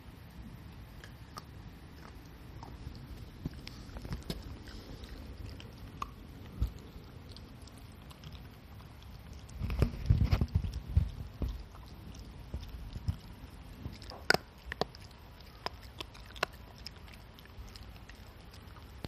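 Shiba Inu gnawing a stick-shaped treat held between its front paws: scattered crunching clicks, with a few sharper cracks in the second half. About halfway through comes a short spell of louder low rumbling.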